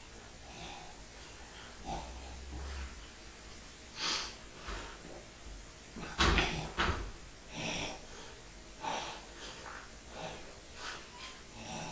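A person breathing hard and snorting with effort while forcing a washing machine door shut, with two sharp knocks about six seconds in as the door is pushed against the machine.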